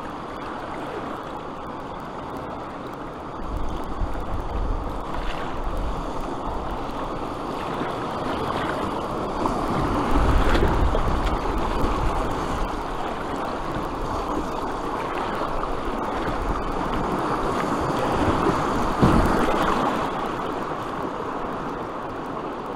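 Fast river water rushing and splashing through a rapid around a canoe, a steady rushing noise. Wind rumbles on the microphone in gusts about four, ten and nineteen seconds in.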